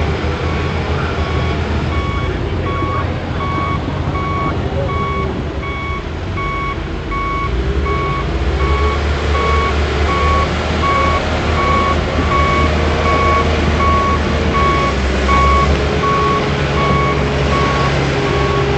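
A bulldozer's backup alarm beeping steadily about twice a second over the low rumble of its diesel engine, which grows somewhat louder about eight seconds in.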